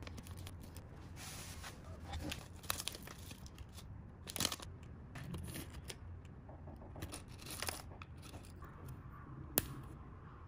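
Foil sachets handled close up: a sauce sachet squeezed out, then a foil packet crinkling and tearing with several sharp crackles as dried topping slices are shaken out of it into a paper noodle cup.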